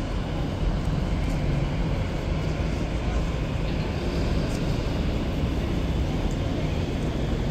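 Steady low rumble and hum of the Roosevelt Island aerial tramway's cable machinery as the cabin pulls out of the station, mixed with city traffic noise.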